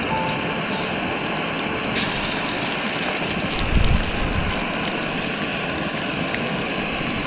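Wind rushing steadily over an exposed ridge, with a gust buffeting the microphone about four seconds in.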